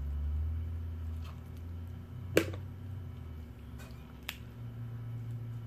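A few sharp clicks of lobster leg shell being cracked and snapped apart by hand, the loudest about two and a half seconds in and a smaller one near the end, over a low steady hum.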